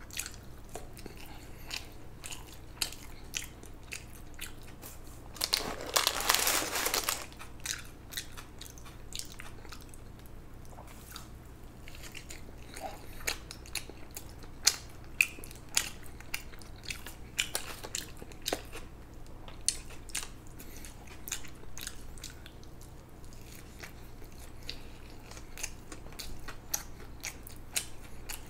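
A person chewing and eating food close to the microphone, with many small wet mouth clicks. About six seconds in there is a louder, noisier stretch of a second or so.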